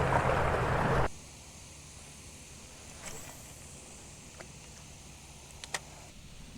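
Electric trolling motor running with a rush of water and a low hum, cutting off suddenly about a second in; then quiet with a few faint clicks.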